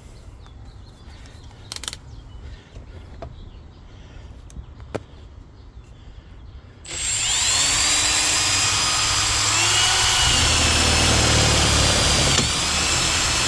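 A few light clicks of handling, then about seven seconds in a power drill starts and runs steadily at speed with a high whine, boring a hole through the plastic of a Milwaukee Packout tool box; it falters briefly near the end.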